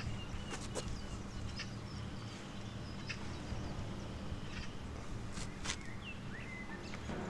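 Outdoor ambience: a steady low hum with scattered small clicks and taps, and a couple of short bird chirps about six seconds in.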